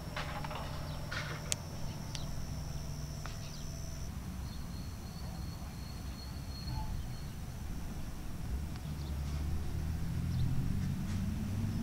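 Rural outdoor ambience: a steady low rumble with insects trilling at a high, even pitch for the first several seconds, and a few faint clicks near the start.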